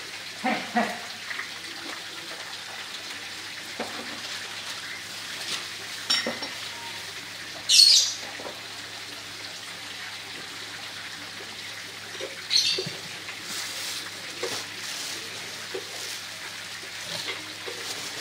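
Soupy noodle broth simmering in a wok, a steady bubbling hiss with scattered small pops and clicks. A brief, loud, high-pitched hiss comes about eight seconds in, and a smaller one near thirteen seconds.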